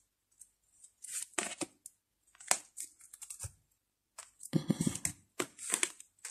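Tarot cards being handled: short papery swishes and snaps as cards are slid off a deck and held up, with the loudest burst of rustling about four and a half seconds in.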